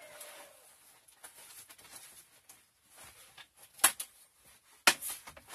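A rooster's crow trails off at the very start, then light handling taps and rustles as the plastic tub lid fitted with wire hardware cloth is taken up, with two sharp clicks about a second apart near the end.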